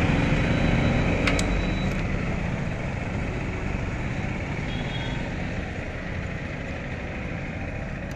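Motor vehicle engine running on the road, its sound fading gradually as it moves off, with two light clicks about a second and a half in.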